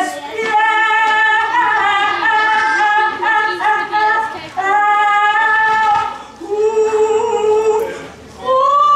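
A woman singing solo, holding long, steady notes, with short breaths about six and eight seconds in.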